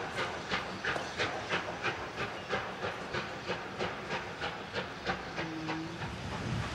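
Steam locomotive chuffing as it pulls away, its exhaust beats coming about three a second and growing fainter as it draws off.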